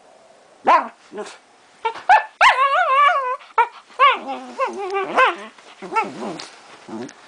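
Small terrier making play noises: a string of short barks, yips and growls, with a longer wavering, warbling whine-growl about two and a half seconds in.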